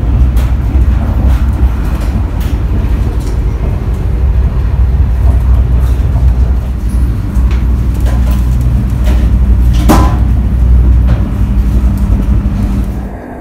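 Interior running noise of a TGV EuroDuplex bar car on the move: a loud, steady low rumble with scattered knocks and rattles, and one sharper knock about ten seconds in.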